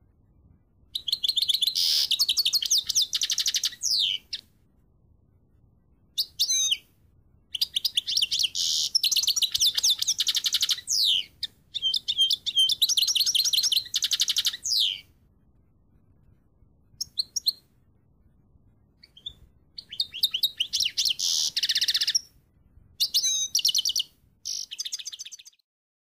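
A pet finch singing: repeated phrases of fast, high twittering trills, each from under a second to about three seconds long, with short pauses between them.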